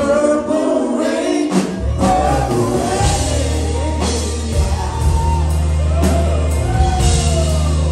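Live band playing, with singing over drums and electric guitar. A deep bass line comes in about two seconds in.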